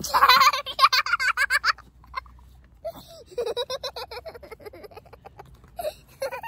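A young child laughing: a high, squealing giggle in the first couple of seconds, then a run of quick, rhythmic laughs starting about three seconds in.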